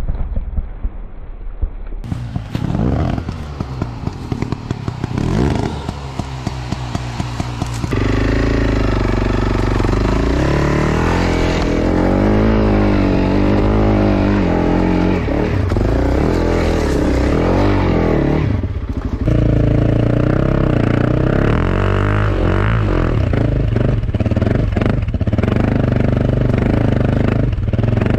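Honda CRF300 Rally's single-cylinder engine, quieter at first, then much louder from about eight seconds in, revving up and down as the bike is ridden on a leaf-covered forest slope. Clattering and scraping of the bike over the rough ground come through as well.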